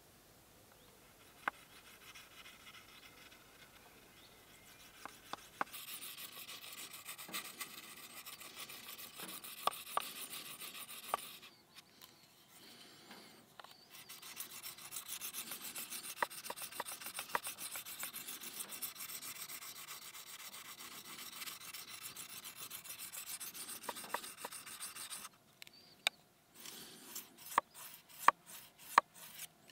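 Puukko knife blade being stroked across a round whetstone, a steady scraping that stops for a couple of seconds near the middle, then near the end breaks into separate short strokes.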